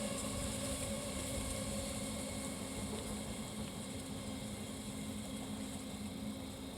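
Steady low rumble and hum of a freight train on the line, fading slowly.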